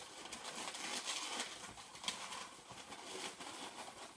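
A white metallic 260 latex modelling balloon rubbing against itself and the hands as it is twisted into pinch twists: a continuous rough rubbing with uneven swells.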